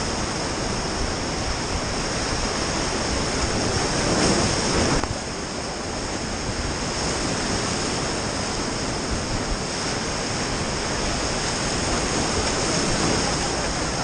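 Whitewater rapids rushing and churning around an inflatable raft, a steady dense roar of water. It swells about four seconds in, then drops suddenly about a second later.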